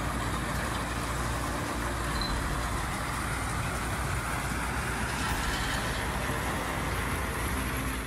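Mini excavator's diesel engine running steadily under load while its screening bucket works, with a steady rushing noise of soil and stones being shaken and sliding down a chute.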